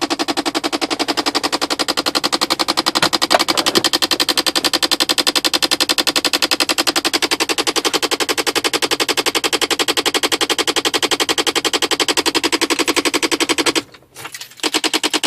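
A car making a rapid, even clicking noise, many clicks a second, that stops for about half a second near the end and then starts again.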